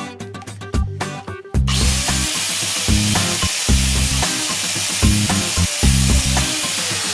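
An angle grinder spinning a CD in place of a cutting disc starts about one and a half seconds in and runs steadily as the disc grinds against a tennis ball. A funk track's bass beat plays underneath throughout.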